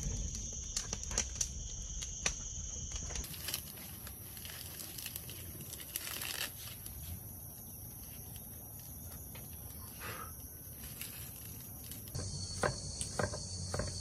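Steady high-pitched insect drone, with scattered snaps and crackles of dry sticks being laid into a small metal wood stove. Near the end come a few knife chops on a wooden chopping block.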